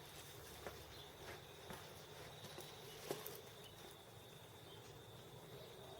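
Near silence: faint room tone with a thin steady high tone and a few soft clicks, the loudest about three seconds in.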